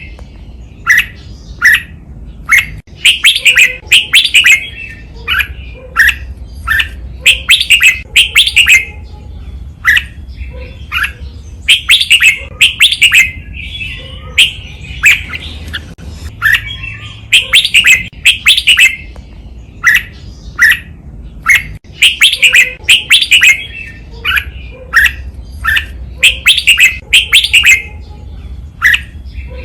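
Red-whiskered bulbul singing: loud, clear phrases of short whistled notes, delivered in quick clusters that repeat every second or two.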